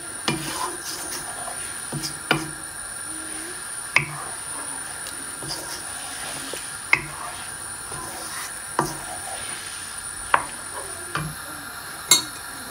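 A spoon stirring thick chicken curry gravy in a nonstick frying pan, knocking and scraping against the pan every second or two, over a faint steady hiss.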